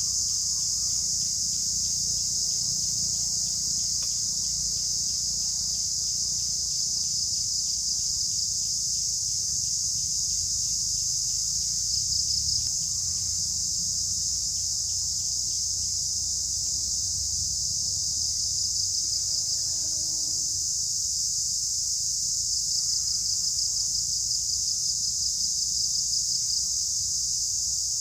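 Steady, high-pitched drone of an insect chorus, with stretches of fast, even pulsing over it at times, and a low rumble underneath.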